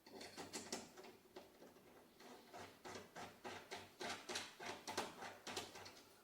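Irregular series of light clicks and taps, about two or three a second, from hardware being handled and fastened by hand while a kayak outrigger mount is fitted.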